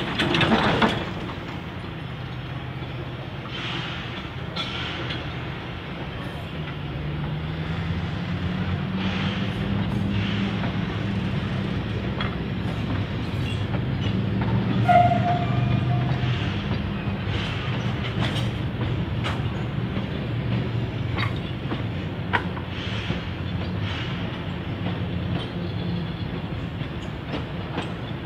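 A steam-hauled passenger train running slowly, with a low rumble and scattered clanks and clicks from the wheels and carriages. There is a loud burst right at the start and a short high-pitched note about halfway through.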